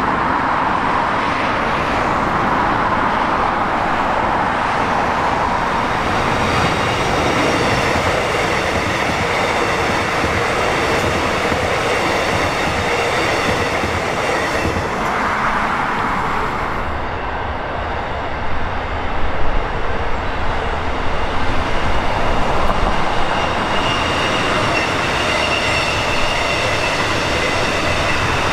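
X'trapolis 100 electric multiple-unit train passing along the track, its wheels running on the rails with a steady high-pitched whine. A run of sharper clacks comes about two-thirds of the way through.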